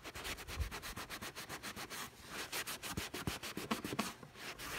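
A cloth rag dampened with furniture polish rubbed quickly back and forth over the side of a cardboard box, rubbing off grime: a fast, even run of swishing strokes, several a second, with brief pauses about two seconds in and again near the end.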